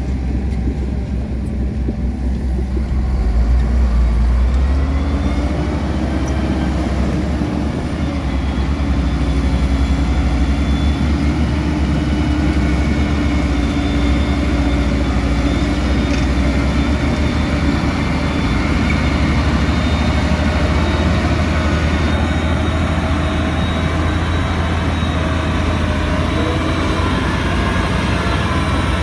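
Heavy diesel engine of earthmoving machinery running continuously with a low rumble; a few seconds in its pitch rises and it gets louder, then it holds steady.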